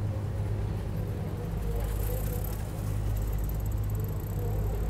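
A steady low engine hum that does not change. A faint high whine joins it about two seconds in.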